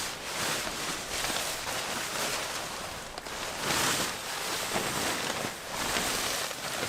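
Irregular rustling and handling noises from a tent being pitched, rising and falling in swells, loudest a little under four seconds in.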